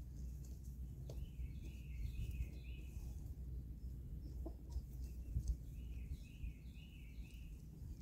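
Birds calling: two runs of short, high, repeated notes, one early and one after the middle, over a faint low outdoor rumble with a few light clicks.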